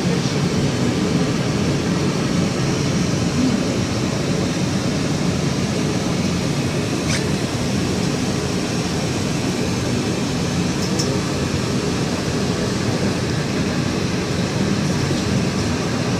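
Steady rumble and hiss inside a city tram, with two faint clicks, about seven and eleven seconds in.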